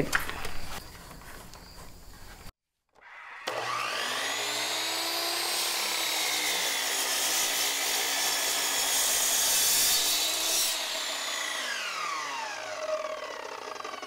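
Miter saw starting up and cutting through a maple board, a steady high whine with the noise of the cut. A little before the end the motor is switched off and winds down with falling pitch.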